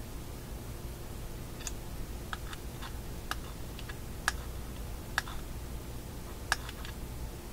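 Irregular small clicks and taps of fingers handling the small parts of a Philco shadow tuning meter, with three sharper clicks in the second half, over a steady low hum.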